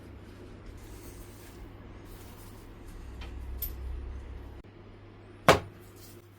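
A low steady hum that cuts off suddenly about four and a half seconds in, followed a second later by a single sharp knock.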